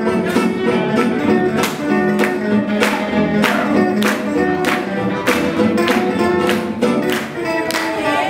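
Live swing music from an acoustic string band, with guitars chopping out a steady beat of about two strums a second under sustained melody notes.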